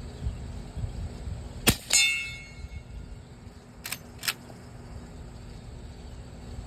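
Suppressed Marlin 1894 lever-action firing one subsonic .44 Special round: a muffled shot, then a quarter-second later a ringing clang as the bullet strikes steel. About two seconds later, two sharp clicks as the lever is worked open and shut.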